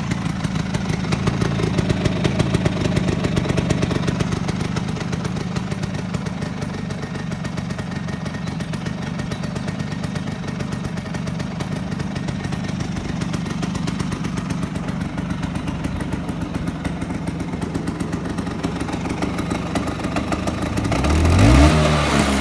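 Stock Vespa PX 125 two-stroke single-cylinder engine idling steadily through its standard exhaust. Near the end it briefly rises in pitch and gets louder.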